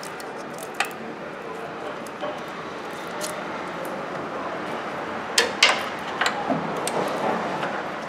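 Hand tools working a starter mounting bolt under a car: a socket, extension and ratchet clinking against metal in a few sharp, irregular clicks, the loudest pair about five and a half seconds in, over a steady background hiss.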